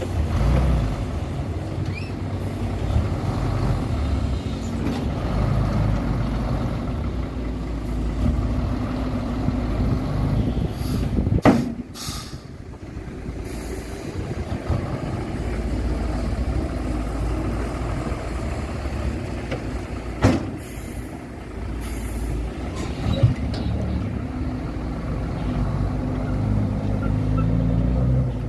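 Heavy diesel dump truck engines running steadily, with sharp air-brake hisses about eleven seconds in and again about twenty seconds in.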